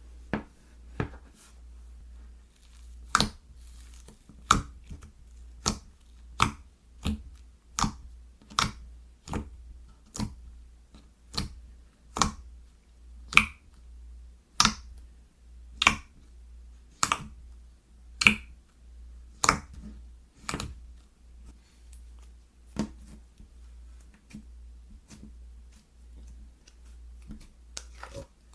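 Slime being pressed and worked by hand, giving sharp popping clicks about once a second, louder through the middle of the stretch and fainter near the end.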